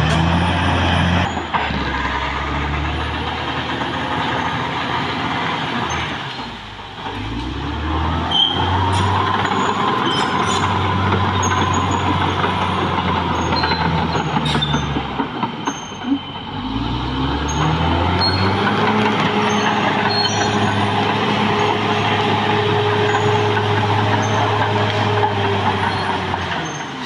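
Caterpillar D6R XL crawler dozer's diesel engine working under load as it pushes through cleared forest ground. The engine note drops and climbs back up twice, about a quarter and about two-thirds of the way through, with a few sharp knocks from the machine.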